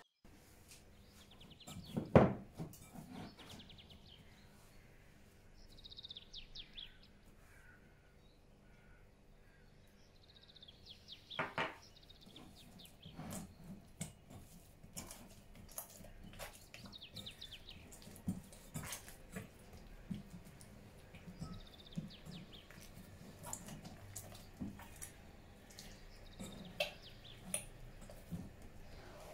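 Hand kneading soft bread dough in a glass bowl: quiet squishing and pressing, with scattered knocks of the hand and dough against the glass, the loudest about two seconds in.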